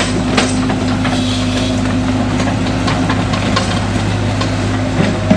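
Tracked hydraulic excavator's diesel engine running steadily as the boom and bucket are worked, with a few short knocks, one about half a second in and two near the end.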